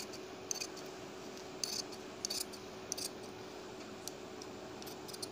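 Large tailor's scissors snipping through suit fabric backed with fusing paper, about six crisp snips roughly a second apart, trimming the margin around a stitched neckline.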